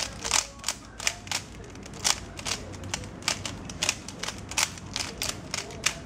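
Moyu Weilong 3x3 speed cube being turned by hand to scramble it: a quick, irregular run of sharp plastic clicks as its layers snap round, about three a second.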